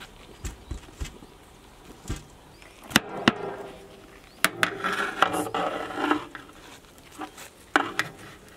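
Two sharp metal clanks of a long metal spatula against a large metal biryani pot, then a couple of seconds of scraping and scooping through the cooked rice, with two more knocks near the end.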